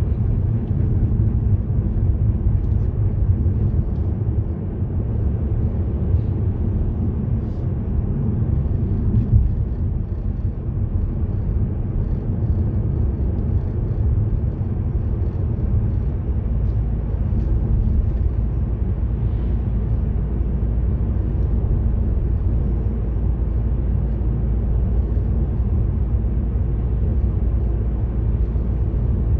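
Car driving along a road: a steady low rumble of engine and tyre noise with no let-up.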